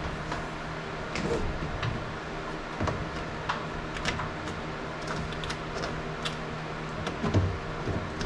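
Scattered light clicks and knocks of handling work over a steady low hum, with a louder knock near the end.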